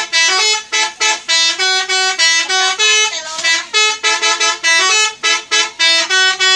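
Indonesian bus 'telolet' horn, a multi-note musical air horn, playing a loud, quick tune of short notes that step up and down in pitch, about four a second without a break.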